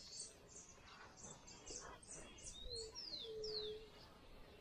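Faint birdsong from the riverbank: a run of short, high chirps, then a few quick sliding whistles and two held lower notes around the middle.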